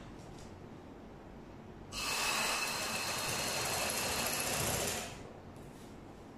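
Black domestic sewing machine driven by an add-on electric motor, running a seam for about three seconds: it starts abruptly about two seconds in with a steady motor whine and needle clatter, then stops.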